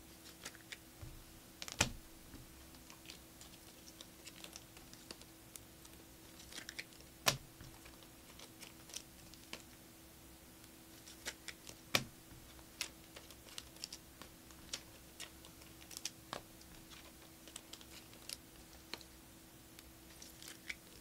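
Trading cards being flipped through and handled: scattered light clicks and taps as the cards slide and knock against each other, a few sharper snaps about 2, 7 and 12 seconds in, over a faint steady hum.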